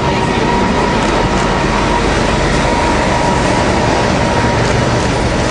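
Steady rumble of street traffic with a heavy road vehicle's engine running, an even noise that does not let up.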